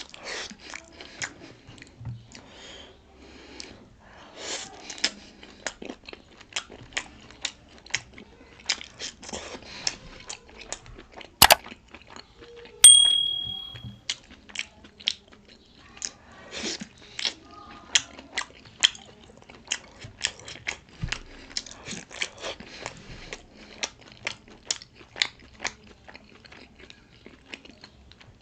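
A person biting and chewing pork momos (dumplings), with many short wet mouth clicks throughout. Near the middle there is one sharp click, and soon after a clink that rings for about a second.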